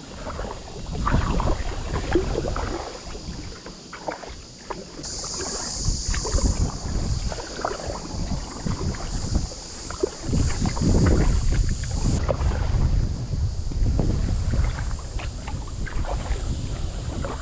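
Kayak paddle blades dipping and splashing in calm creek water, stroke after stroke, with wind rumbling on the microphone. A high pulsing buzz joins in from about five seconds in and stops suddenly around twelve seconds.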